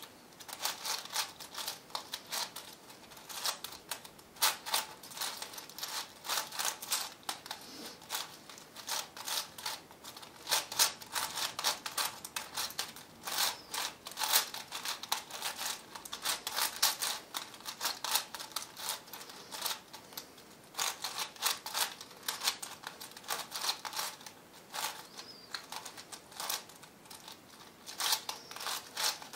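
A V-Cube 7 (7x7x7 twisty puzzle) having its layers turned by hand during a solve: a fast, irregular run of plastic clicks and clacks.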